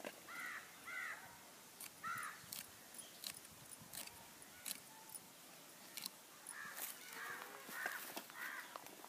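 Sharp little clicks of a small knife slicing okra pods over a cutting board, spaced a second or so apart, with a bird giving short harsh cawing calls, a few in the first two seconds and another run about seven seconds in.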